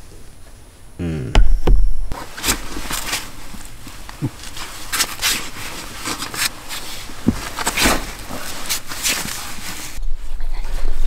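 A dog close to the microphone: a short whining sound about a second in, then a run of irregular rustling and scuffling noises as it stirs.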